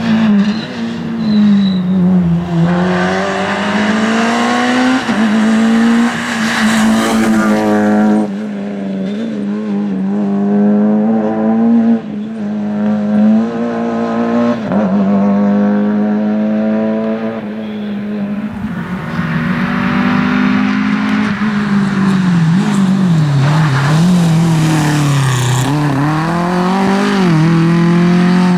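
Rally car engine revving hard under acceleration, its pitch climbing and dropping back again and again as it changes up through the gears.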